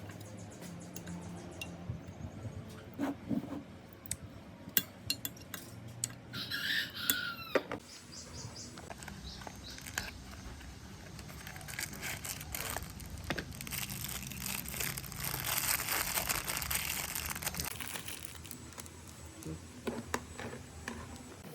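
Metal parts and hand tools clinking, knocking and scraping during hands-on workshop work on an old air compressor, with a denser run of rapid clicks and scraping toward the middle. A drawn-out pitched call that falls in pitch at its end sounds about six seconds in.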